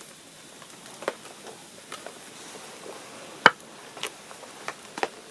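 Scattered, irregular sharp clicks and ticks over a quiet background, with one louder snap about three and a half seconds in.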